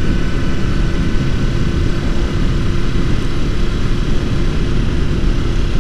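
Motorcycle cruising at a steady speed: the engine holds one even note over a heavy rumble of wind on the helmet-mounted microphone.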